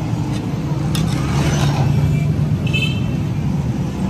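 Metal spatula working food on a large flat iron tawa, with a sharp clack about a second in and a short high squeal near three seconds, over a steady low rumble.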